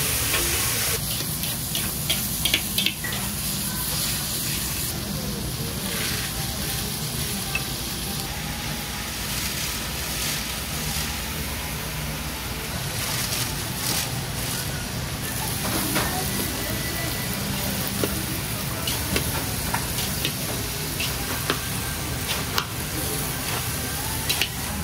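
Cabbage and meat stir-frying in a large wok: steady sizzling, with short clinks and scrapes of the cook's utensil against the pan now and then.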